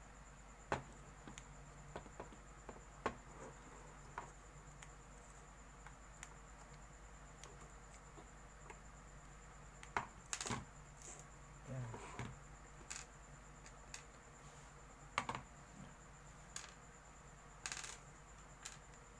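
Faint, scattered clicks, taps and brief scrapes of small tools against a motherboard while a solid capacitor is worked loose with a soldering iron, over a steady faint high-pitched whine and low hum.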